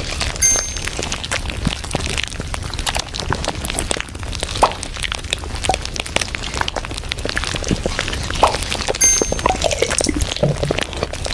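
Steady, dense crackling and popping that runs on without a break, like a looping background sound.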